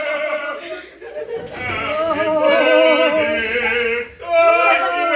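Music with a singing voice, the sung phrases breaking off briefly about a second in and again about four seconds in.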